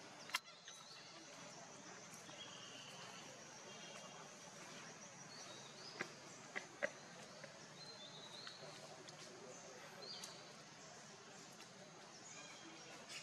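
Faint outdoor ambience with scattered short high chirps and a few sharp clicks, three of them close together near the middle.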